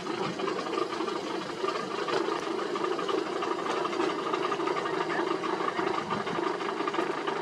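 Road-paving machinery running steadily: a diesel engine under a continuous fast mechanical rattle.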